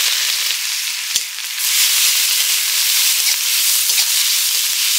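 Onion paste frying in hot oil: a loud, steady sizzle, with a few light clicks.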